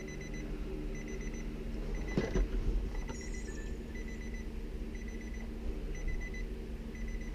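Nissan Versa's warning chime beeping about once a second, each beep a short high tone, over a steady low hum.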